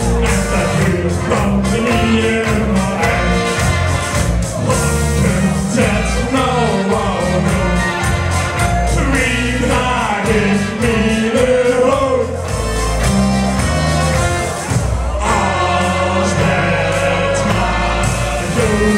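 Live song in Limburgish dialect sung by two men into microphones over music with a steady beat, with a group on stage singing along.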